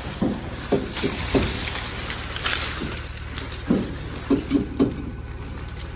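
Green maize stalks and leaves rustling and crackling as they are pulled out by hand from a blocked maize chopper, in short bursts, over a steady low engine hum.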